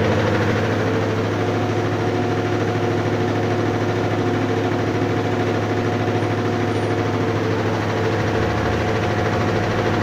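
Mabe Kraken top-load washing machine in its spin cycle, the drum and motor running steadily at top spin speed with an even hum.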